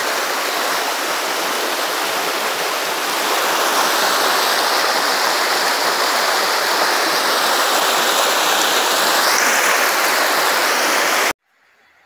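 Shallow rocky forest stream running over stones: a steady rush of water that grows a little louder about three seconds in and cuts off abruptly near the end.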